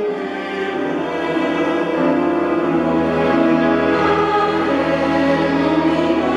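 Choir singing a sustained passage with bowed strings, the cello among them, swelling in volume over the first two seconds and then holding.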